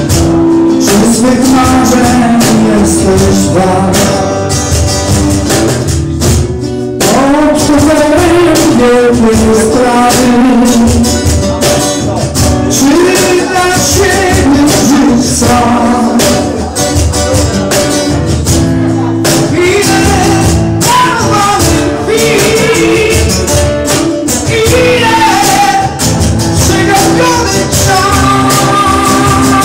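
Live acoustic performance: a man singing into a microphone, accompanied by two acoustic guitars.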